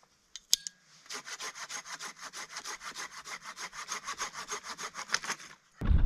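A hand saw cutting through wood in a quick, even run of strokes that starts about a second in and stops near the end, after a couple of sharp clicks.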